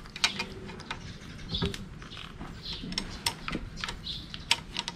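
Irregular sharp metal clicks and taps of a wrench working the 14 mm banjo bolt that fixes the brake hose, with its copper washers, to the master cylinder.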